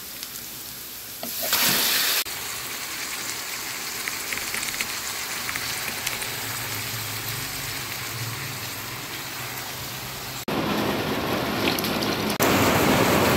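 Oil sizzling in a frying pan through several short cut clips as onion, garlic and pork fry. Near the end it gets louder, with a rushing pour as coconut milk goes over the pork.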